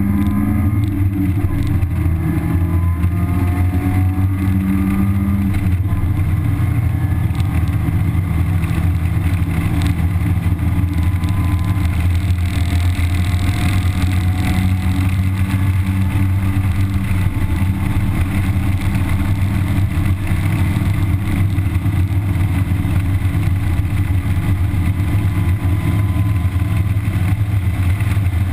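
A 1991 Mazda Miata's stock-exhaust 1.6-litre four-cylinder engine running hard on track, heard from inside the cabin with a steady low drone. The engine note changes about five seconds in.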